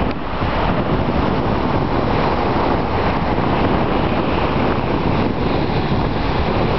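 Steady wind buffeting the microphone over the wash of surf on a beach.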